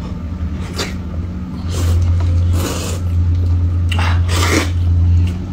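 Hot and sour noodles being slurped from a cup in several noisy slurps, about one, two and four seconds in, over a steady low hum.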